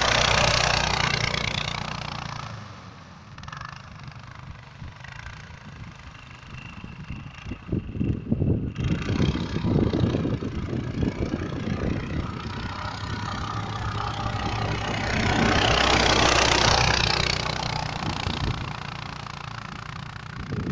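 Small engine of a mini snowmobile running, surging loudly at the start and again about fifteen seconds in, and idling unevenly in between.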